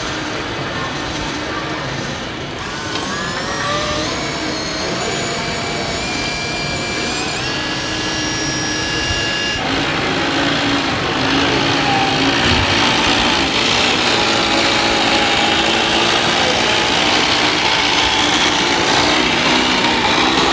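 Radio-controlled scale Mercedes-Benz tipper truck driving, its drive making a whine that rises in pitch in steps as it speeds up. About ten seconds in the sound changes abruptly to a steadier mix of motor noise and hall background.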